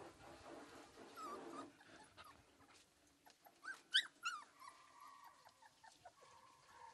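Dogs whining, with a cluster of short high yelps about four seconds in, the loudest sound, followed by a long steady whine near the end.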